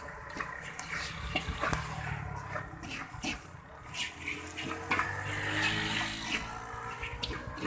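Hot roasting salt stirred and scraped around an iron wok with a metal scoop: a steady grainy rush of shifting grains, with many scattered ticks and scrapes of metal on iron.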